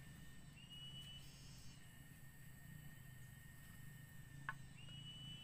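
Near silence: faint outdoor ambience with a steady low hum and thin high tones, two short rising whistle-like calls, and one faint knock about four and a half seconds in.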